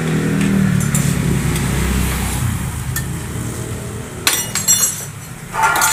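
A motor vehicle engine rumbles and fades out over the first two seconds or so. Then comes a quick run of sharp metal clinks about four seconds in, from steel tyre tools handled during a spoked motorcycle wheel's tyre change, and a brief call that rises and falls at the very end.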